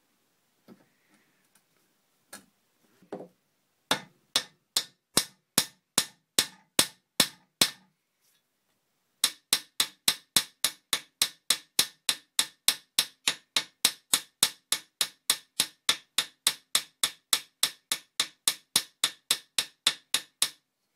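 Hand hammer striking steel rivets, peening them over to rivet horn blocks onto mild-steel locomotive frame plates: a few light taps, then a run of sharp, ringing metal-on-metal blows at about two to three a second. The blows pause for about a second midway, then go on steadily.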